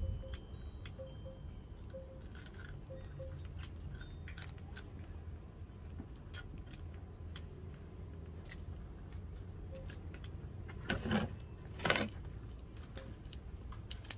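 Small hand knife scraping and cutting at the dry fibrous husk at the base of a sprouted coconut, with scattered small clicks and scrapes and two louder scrapes about eleven and twelve seconds in.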